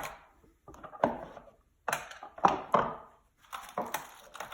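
Pieces of a carbon fiber rib mold being worked loose and lifted out by hand: about four short bursts of knocking and scraping.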